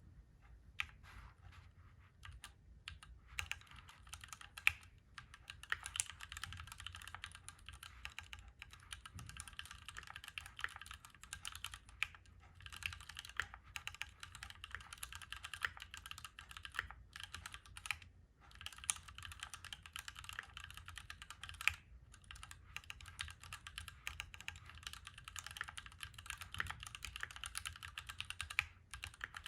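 Typing on a Keychron Q1 Knob mechanical keyboard: a fast run of keystroke clicks that starts sparse and fills in after about three seconds, broken by a few brief pauses.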